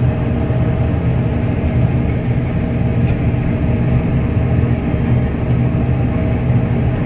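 New Holland TR96 combine running steadily while threshing barley, heard from inside the cab: an even machine hum with a few steady low tones and no change in pitch.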